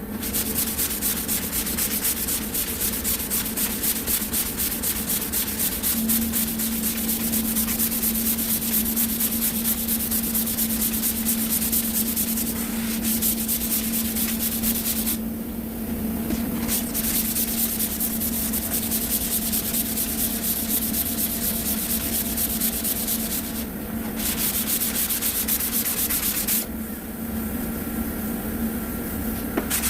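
Hand block-sanding of cured body filler: quick back-and-forth scraping strokes of sandpaper, broken by a few short pauses. A steady low hum sounds underneath from about six seconds in.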